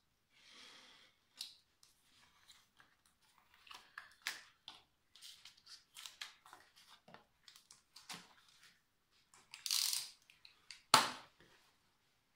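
Cardboard-and-clear-plastic pack of sabre saw blades being torn open and handled: scattered crinkling, clicks and tearing, with a longer rustle near ten seconds and a sharp loud snap about eleven seconds in.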